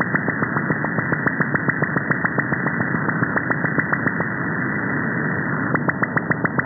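Bursts believed to come from an Australian over-the-horizon radar, received on a shortwave/VHF software-defined radio in upper sideband: a fast train of clicks, about seven a second, over radio hiss. The clicks die away about four seconds in, leaving only hiss. They start again near the end, as the radar steps down about 1 MHz to its next frequency.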